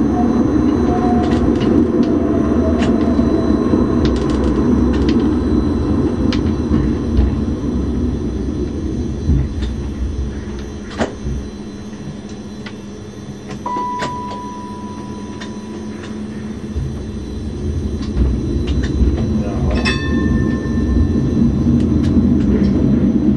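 Bybanen light rail tram (Stadler Variobahn) running, heard from on board: a steady rumble of wheels on rail with scattered clicks, easing as the tram slows midway and building again near the end. A short steady beep sounds midway, and a ringing tone near the end.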